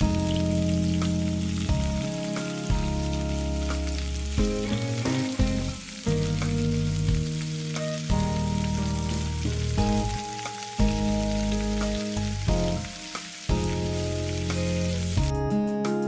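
Food frying in oil in a pan, a steady sizzle, with background music playing over it.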